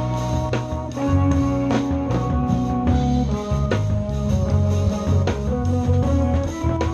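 Live jazz-fusion power trio playing: guitar melody in held notes over a bass line and a drum kit keeping time.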